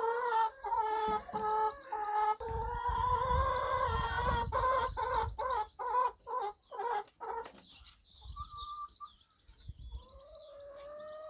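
Domestic hens clucking and calling in a run of drawn-out, repeated notes, with a low rumble in the middle of the run. From about eight seconds in the hens fall quieter and wild birds chirp and sing higher up.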